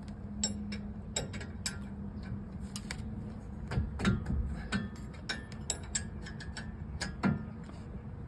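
Irregular metallic clicks and clinks of a hand socket wrench on an 18 mm brake caliper bracket bolt as it is being loosened, over a steady low hum.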